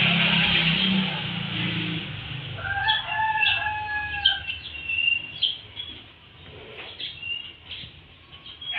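A rooster crows once, about three seconds in, in a drawn-out two-part call, with small birds chirping through the rest. A steady rushing sound with a low hum fades out in the first two seconds.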